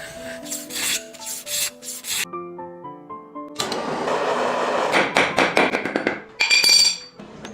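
Bamboo being worked by hand with repeated rough rubbing, sanding strokes, in two runs separated by a short pause. A short bright ringing note sounds near the end, over background music.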